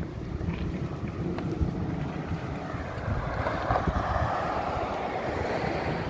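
Wind buffeting the microphone, a dense low rumble throughout, with a broad rushing noise that swells about halfway through and holds to the end.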